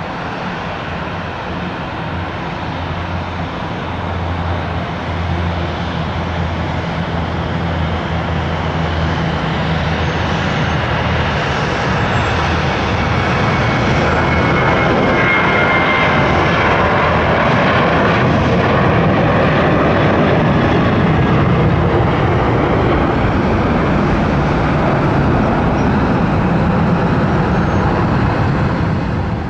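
Boeing 737-800's CFM56 turbofan engines on a takeoff, a steady low hum giving way to a rushing jet noise that grows louder over the first half and stays loud, with a brief high whine near the middle.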